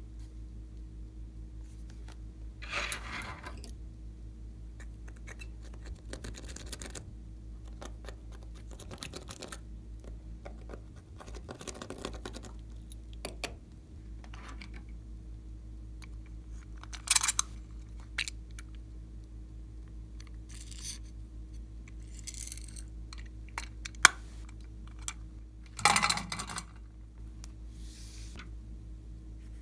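Intermittent small handling sounds of slime-making materials: eyeshadow scraped from a plastic palette, short rustles and scrapes, and a few sharp clicks and taps with quiet gaps between, over a steady low hum. A sharp click comes about two-thirds of the way in, and a longer rustle follows shortly after.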